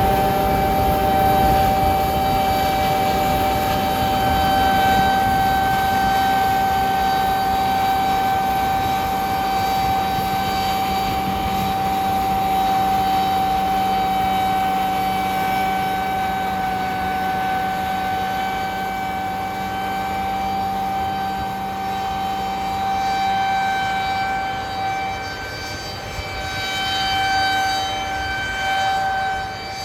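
Combine harvester at work, with the high, steady whizzing whine of its Redekop Seed Control Unit, the weed-seed mill spinning at speed, over the machine's engine noise. The whine is the mill working normally.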